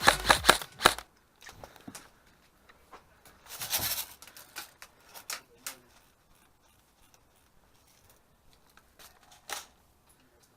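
A quick string of about six sharp cracks within the first second, in the manner of an airsoft gun firing, then faint rustling and scattered clicks of a player moving, with a brief louder rustle about four seconds in and a single sharp click near the end.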